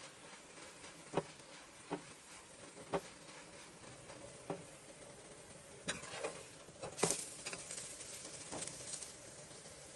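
Paratha frying in oil on a steel tawa, with a steady sizzle, and short clicks and taps at irregular intervals as a wooden press is pushed and turned on it, the loudest about one and seven seconds in.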